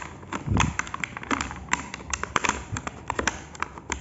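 Clear plastic packaging crinkling and crackling in the hands as a small toy car is unwrapped: many quick, irregular clicks, with a soft thump about half a second in.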